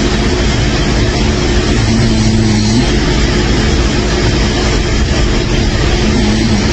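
A person snoring: two short, low-pitched snores about four seconds apart, about two seconds in and near the end, over a steady loud rushing noise.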